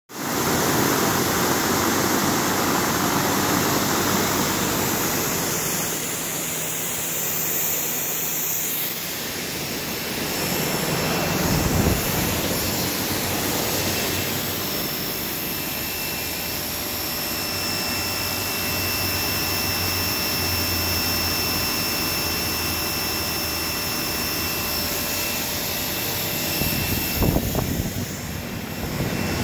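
Pressure washer spraying water onto synthetic slate roof tiles while a large drum fan blows across them: a loud, steady rushing noise. A thin steady whine comes in about halfway through.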